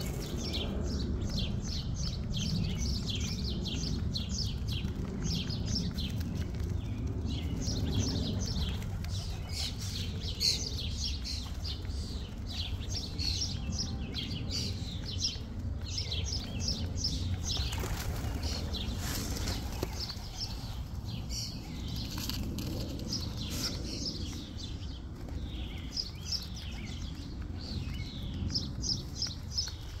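Small birds chirping rapidly and repeatedly in short high notes, with occasional wing flaps from feral rock pigeons feeding, over a steady low rumble.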